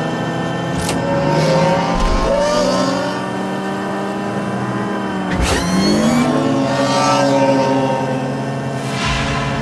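Speeder bike sound effect: a steady buzzing engine hum with bikes whizzing past about a second in, halfway through and near the end. The middle pass is the loudest, and its pitch sweeps downward as it goes by.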